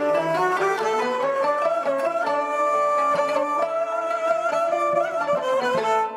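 Traditional Turkish art music played by a small ensemble: the kanun's plucked strings with ouds and a wavering bowed string melody line.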